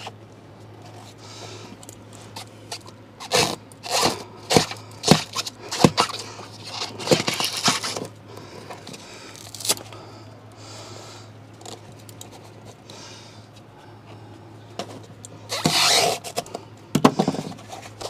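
Closed-cell foam pipe insulation being handled and fitted around a copper refrigerant line: scattered scrapes, rubs and light knocks, with a louder rustling scrape about sixteen seconds in. A steady low hum runs underneath.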